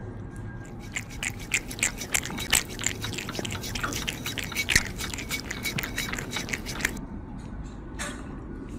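Kitten suckling and licking at a feeding syringe: rapid wet smacking and lapping clicks that stop about seven seconds in, leaving only a few stray smacks.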